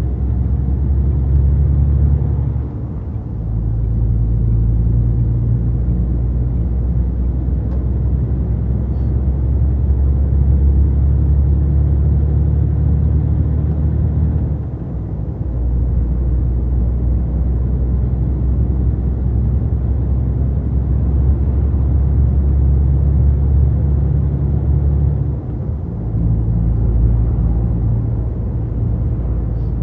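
MAN TGX 480 truck cruising on a motorway, heard from inside the cab: a loud, steady low drone of engine and road noise. The drone dips briefly three times, about 3, 15 and 25 seconds in.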